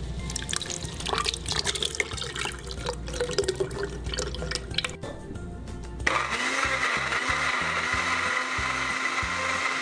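Thick liquid pouring and splashing into a glass blender jar, then about six seconds in an electric countertop blender switches on suddenly and runs steadily, blending the mixture.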